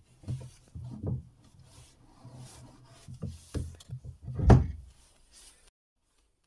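Wooden block being handled and seated in a plywood jig: a run of irregular knocks and rubs of wood on wood, with one heavier thump about four and a half seconds in.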